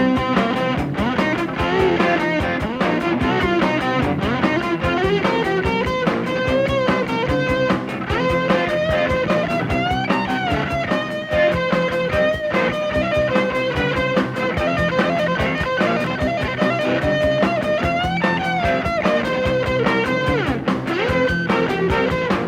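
Instrumental break of a rock song: an electric guitar plays a lead line with bending notes over a steady band beat.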